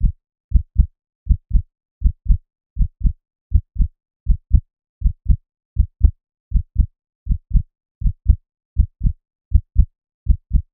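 Heartbeat sound effect: steady pairs of low thumps (lub-dub), about eighty beats a minute.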